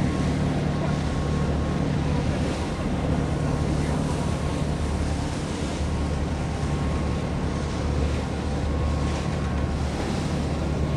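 A passing capesize bulk carrier's engines give a low steady rumble, with wind buffeting the microphone over it.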